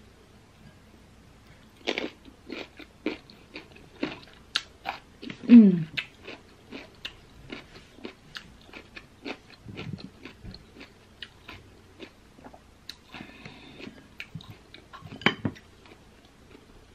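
Close-up crunchy biting and chewing of raw green baby mango slices: a run of sharp, irregular crunches. About five and a half seconds in, a short low sound slides down in pitch, the loudest moment. A louder crunch comes near the end.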